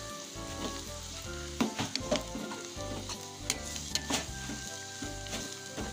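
Sliced onions and coriander powder sizzling as they fry in oil in a pan, stirred and scraped with a wooden spatula that clicks against the pan again and again. The sound is the spice masala being roasted in oil.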